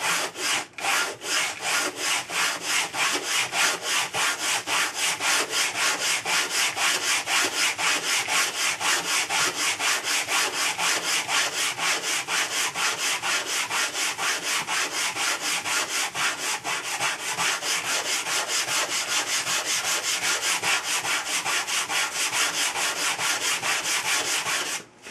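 100-grit sandpaper wrapped around a flat wooden block, sanding the trailing edge of a balsa wood blade by hand to shape an airfoil: a steady rasping hiss of rapid, even back-and-forth strokes, several a second, that stops just before the end.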